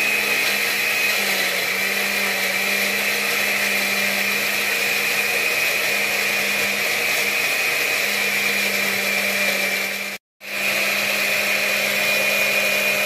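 Countertop blender with a glass jar running steadily at constant speed, puréeing roasted peppers with a little oil. The motor makes an even hum with a high whine, broken by a brief dropout about ten seconds in before it carries on at the same pitch.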